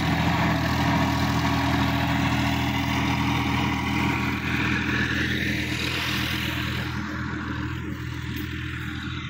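Sonalika DI-50 RX Supreme tractor's diesel engine running steadily under load while pulling a rotary tiller through field stubble. It grows slowly fainter as the tractor moves away.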